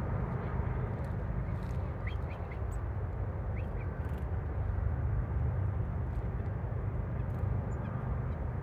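Steady low outdoor rumble with a few faint, short bird chirps about two seconds in.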